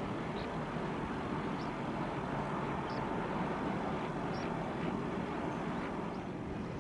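Steady low rumble and hiss of a large wood-chip carrier passing, with a few short high chirps over it about once a second.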